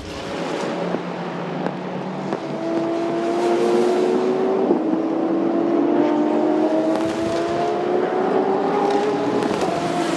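Racing car engine accelerating hard, its note climbing steadily in pitch over several seconds, with a brief break for a gear change about halfway through.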